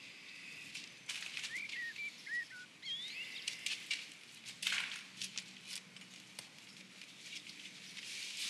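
A few short bird chirps outside, over close rustling and sharp clicks of clothing being handled.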